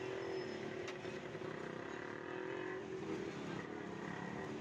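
Katlama flatbread deep-frying in a wide karahi of hot oil, bubbling and sizzling steadily, against the running drone of a motor vehicle engine. There is one sharp click about a second in.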